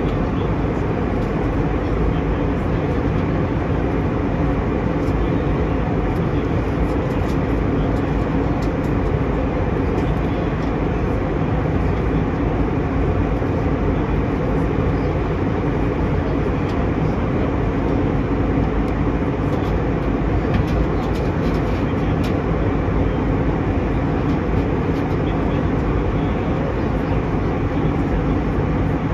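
Steady roar of an Airbus A320 in flight as heard inside the cabin: engine and airflow noise, even and unbroken throughout.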